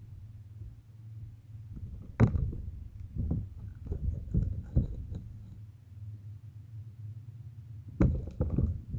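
Slime being squeezed and poked by hand, making a series of soft squelches: a sharper one about two seconds in, several more over the next few seconds, and a cluster near the end. A low steady hum runs underneath.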